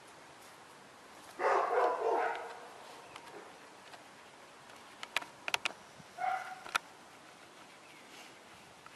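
A dog barking: two barks close together about a second and a half in, then one shorter bark a little after six seconds, with a few sharp clicks just before it.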